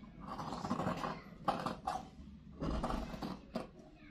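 Tailor's shears cutting through cloth along a chalk line, the blades scraping through the fabric in two stretches with a short pause about two seconds in, and a sharp click of the blades now and then.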